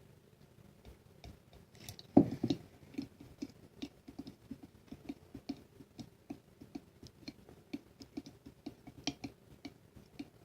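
Plastic spoon stirring gooey Elmer's glue and green food coloring in a jar, clicking against the side in a quick, even rhythm of about three or four knocks a second. It starts about two seconds in, with the loudest knock first.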